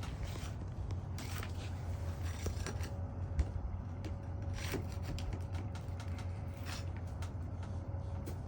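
A nail being pried out of a roof shingle: scattered scrapes, creaks and small clicks over a low steady hum.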